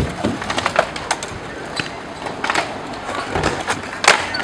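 Skateboard on concrete: the wooden deck clacks and knocks a few times, the loudest clack about four seconds in, over the rumble of the wheels.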